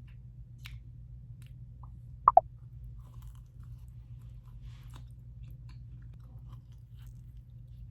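Close-up small clicks and handling sounds of skincare packaging as a lip essence is opened and applied, with one sharp double click about two seconds in, over a low steady hum.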